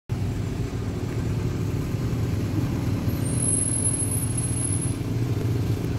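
Engines of a slow-moving police motorcade, cars and a police motorcycle, making a steady low rumble with no sirens.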